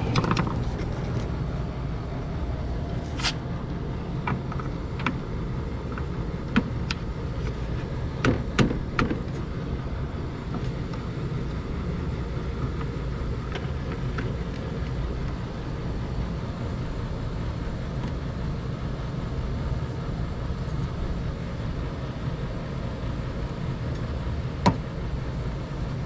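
LG window air conditioner running with a steady low hum from its compressor and fan motor, on a test run after repair. A few sharp clicks stand out over the hum, the loudest near the end.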